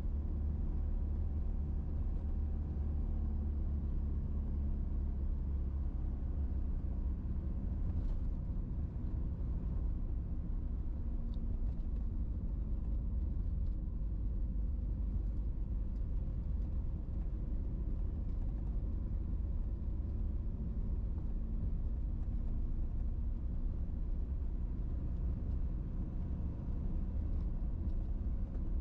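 Moving road vehicle: a steady low rumble of engine and tyres on the road, with a faint wavering engine hum.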